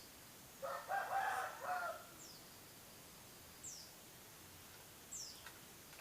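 A rooster crows once, about half a second in, in a call lasting about a second and a half. Short, high chirps that sweep downward come from a small bird about every second and a half after it.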